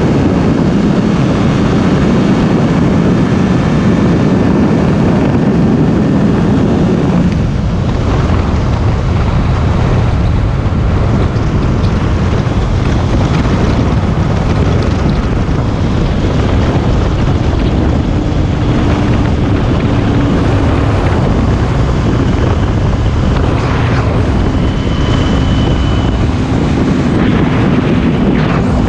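Kawasaki Ninja 250 parallel-twin engine running at highway speed under heavy wind noise on the microphone. The engine's low drone eases about seven seconds in, and the wind noise stays loud.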